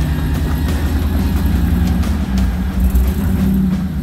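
Off-road 4x4's engine running at low revs, picking up a little between about two and three and a half seconds in.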